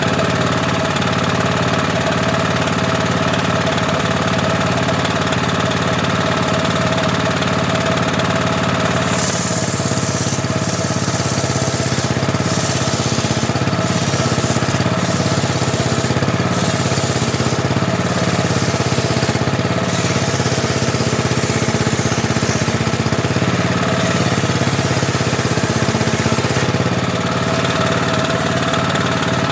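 Homemade table saw running, its circular blade cutting teak from about nine seconds in until near the end. A hiss of sawing comes and goes in several pushes over a steady drive note that wavers under the load.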